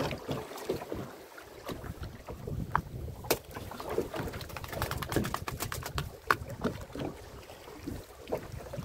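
Irregular knocks and clattering aboard a fishing boat, sharpest twice, about a third and two thirds of the way through, over a low rumble of wind on the microphone.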